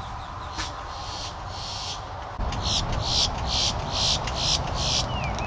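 A run of short, high-pitched chirps, about three a second, starting about two and a half seconds in, over a low rumble on the microphone that begins at the same moment.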